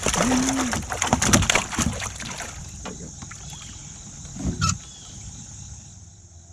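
A burst of knocking and rustling in a small aluminium fishing boat as a big crappie is landed and handled, loudest and busiest in the first two seconds, with one more knock about four and a half seconds in.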